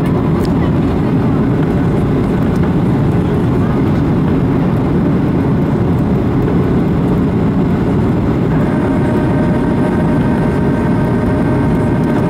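Cabin noise of a Boeing 737-800 on approach, heard from a seat over the wing: a steady rush of airflow and rumble from the CFM56 engines, with the flaps extended. About two-thirds of the way through, a steady whine of several tones joins in.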